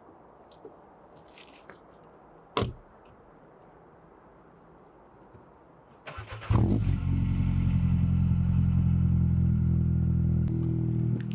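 BMW E36 car engine started: a brief sharp noise, then about six seconds in the starter cranks briefly, the engine catches and settles into a steady idle.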